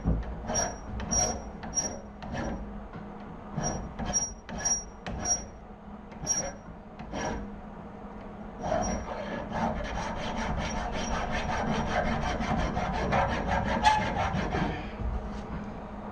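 Hand file or rasp working down weld build-up on a steel mower axle: separate scraping strokes with a thin high squeal at first, then from about halfway a quicker steady run of about five strokes a second that stops shortly before the end.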